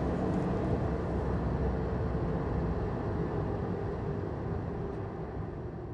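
Steady low rumble of a vehicle in motion, with a faint hum running through it, fading out near the end.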